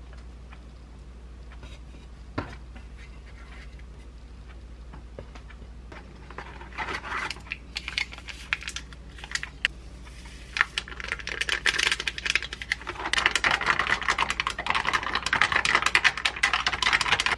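Carbonated lemon drink powder fizzing and crackling in a glass of iced water while a straw stirs it, a dense crackle that starts about six seconds in and grows louder and thicker over the last few seconds. A single knock about two seconds in.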